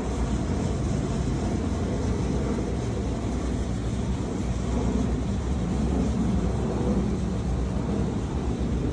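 Steady outdoor background noise: a low, fluttering rumble with hiss, with no distinct events in it.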